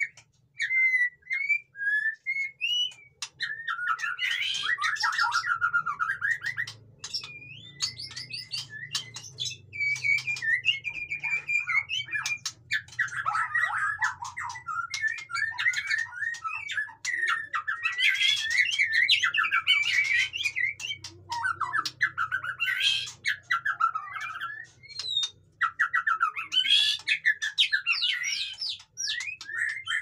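White-rumped shama (murai batu) singing a busy, rapid song of varied whistles, trills and chattering notes, with hardly a pause. It opens with a few separate whistled notes and becomes a dense run of phrases after about three seconds.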